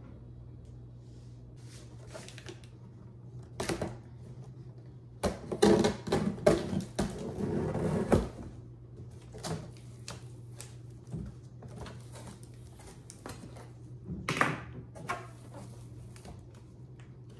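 Cardboard printer box being opened: a craft scalpel slits the packing tape and the flaps are pulled and handled, giving scattered knocks, clicks and cardboard rustles. The loudest stretch, dense scraping and tearing, comes between about 5 and 8 seconds in. A steady low hum runs underneath.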